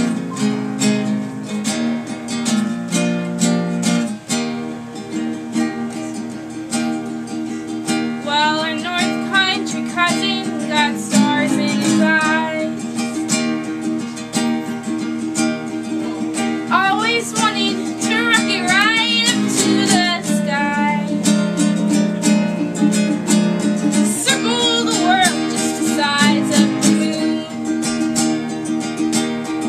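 Acoustic guitar and ukulele strummed together, playing a folk song, with singing coming in three phrases over the chords.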